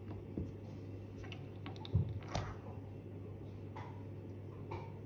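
A few light, scattered clicks and taps of small watch parts and tools being handled on a watchmaker's bench, the loudest about two seconds in, over a steady low hum.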